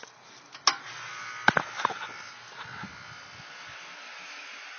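Newly installed Rheem Classic air conditioner outdoor unit starting up: a few sharp clicks in the first two seconds, then a steady running buzz that is partly the compressor. The compressor has not yet equalized, and the system is not fully charged with refrigerant, so it runs a little louder than it will once charged.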